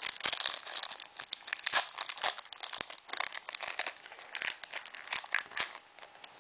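Foil wrapper of a Pokémon EX Dragon booster pack crinkling as it is handled and torn open, a dense run of irregular crackly snaps.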